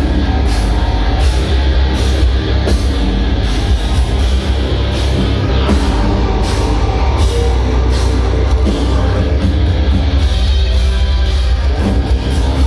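Heavy metal band playing loud, with very deep, heavy bass and a steady drum hit about every three-quarters of a second.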